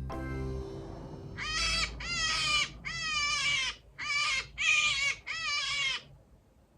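Six high, wavering cries of a wild rabbit, played back from a recording, each under a second long, between about one and a half and six seconds in.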